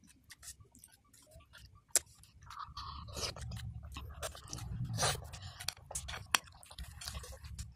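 A child eating chicken rice porridge with a metal spoon: the spoon scrapes and taps on the ceramic plate amid wet chewing and mouth sounds, a string of small clicks with a sharper tap about two seconds in.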